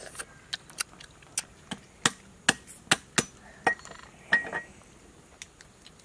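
Cooked crab shells being cracked and bitten open by hand and mouth: a dozen or so sharp cracks and clicks at irregular intervals.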